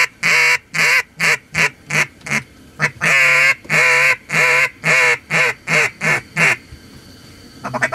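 Duck call blown in two loud runs of about ten quacks each, every run opening with long drawn notes and then quickening into shorter ones: a hunter's mallard hen hail call aimed at passing ducks.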